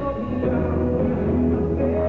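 Live rock band playing amplified electric guitar, bass, drums and keyboards under sung vocals.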